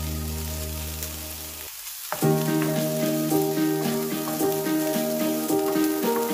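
Chopped spring onions and garlic sizzling in a hot non-stick frying pan, stirred with a wooden spatula that scrapes and pushes them around. Background music with held notes runs underneath and changes chord about two seconds in.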